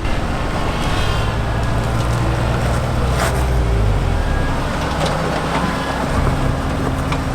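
Off-road vehicle engine running steadily at low revs, with a sharp knock about three seconds in.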